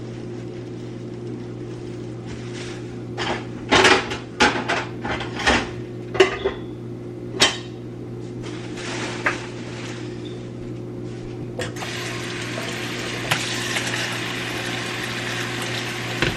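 Dishes and containers clattering in a kitchen sink, with a run of sharp knocks and clinks in the middle, over a steady low hum. Near the end a tap is turned on and water runs steadily.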